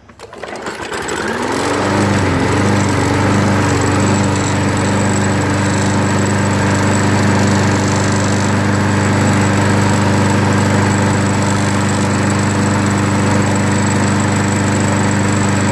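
The 149cc engine of a brand-new Lawn-Boy 17732 push mower starts for the first time, freshly oiled and fuelled. It catches and rises in pitch over the first couple of seconds, then settles into steady running.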